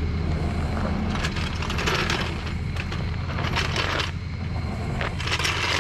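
A vehicle engine idling steadily, with three short bursts of crunching, gritty noise over it.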